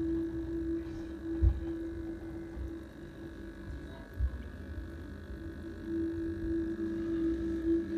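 Aquarium pump humming steadily with a low rumble, the hum weakening in the middle and coming back. Two dull thumps, about a second and a half in and again about four seconds in.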